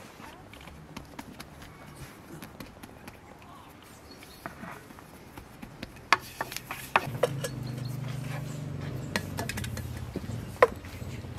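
Hand food-preparation sounds: light handling of dough, then a few sharp taps and clinks of a bowl and utensils from about six seconds in, over a low steady hum.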